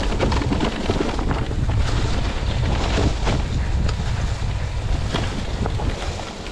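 Wind buffeting a chest-mounted GoPro's microphone over the rumble of an e-mountain bike's wide Schwalbe Magic Mary tyres on a leaf-covered dirt trail, with many short knocks and rattles as the bike runs fast downhill over bumps.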